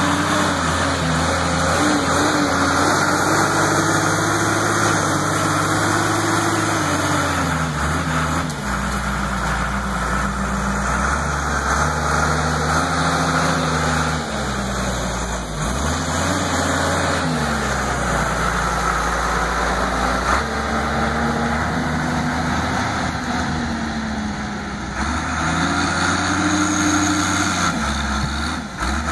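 New Holland 12D wheel loader's diesel engine running while the machine works, its engine speed rising and falling several times.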